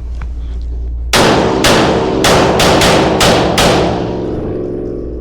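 Staccato P pistol firing a fast string of about seven shots, starting about a second in, each shot ringing briefly: the opening string of a USPSA stage after the start signal.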